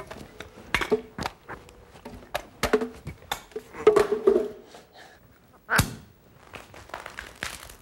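Irregular knocks and clanks of juggled props, a champagne bottle and a metal frying pan among them, being caught and handled, some ringing briefly. Just before six seconds in comes a single sharp pop: a champagne cork popping out, the bottle spraying foam.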